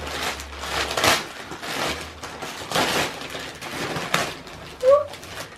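Christmas wrapping paper and tissue paper crinkling and tearing as a present is unwrapped by hand, in several rustling surges, with a brief voiced murmur near the end.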